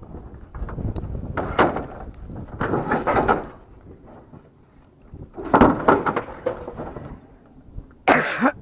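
Scrap pieces being shifted and slid around by hand, in four rough bursts of scraping and knocking with short pauses between.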